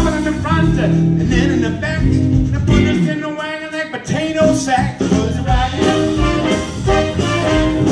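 Live jump-blues band playing: piano, electric guitars, bass, drums and a horn section of saxophone, trumpet and trombone. The bass end drops out for about a second around the middle, then the full band comes back in with the horns.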